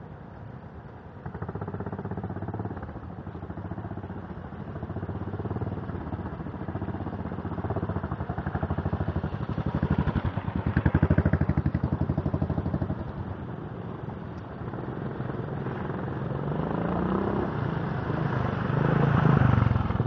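Motorcycle engines running as bikes ride across and approach, with an even pulsing engine beat. The sound swells about halfway through, eases off, then grows to its loudest near the end as one bike passes close.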